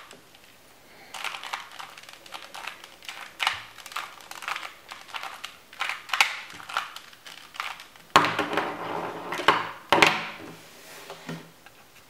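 Plastic 2x2 mini Rubik's cube being twisted quickly by hand, its layers clacking in uneven runs of clicks. There is a denser, louder stretch of rattling turns about eight to ten seconds in.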